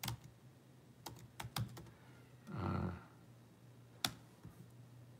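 Computer keyboard keys clicking in a few scattered keystrokes, the sharpest about four seconds in, with a short low murmur about halfway.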